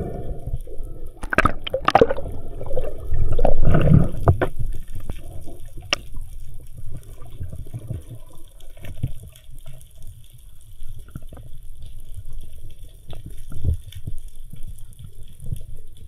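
Underwater water noise picked up by the freediver's camera: a louder, irregular stretch of water movement with clicks in the first four or five seconds, then a low steady rumble with scattered small clicks.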